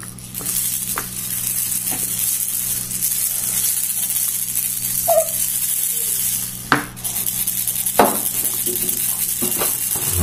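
Baby's bead rattle being shaken continuously, the beads inside its clear plastic ball making a steady high rattling hiss that breaks off briefly about two-thirds of the way through.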